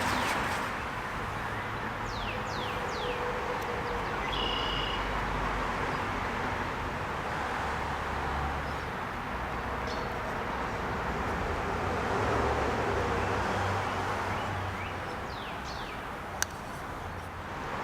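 Steady background noise with a low hum, like distant traffic, with birds chirping a few times and a single sharp click near the end.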